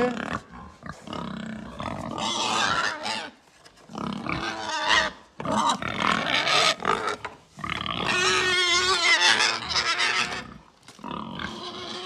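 Pigs grunting and squealing at close range in repeated bursts of a second or two, the loudest and shrillest run about eight seconds in.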